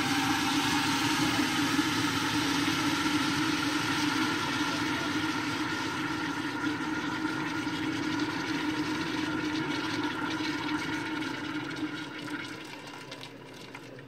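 Boiling water poured in a steady stream from a stainless kettle into a crock pot, splashing over a rack of copper plates onto caustic soda in the bottom to make a caustic steam bath. The pour tapers off and stops near the end.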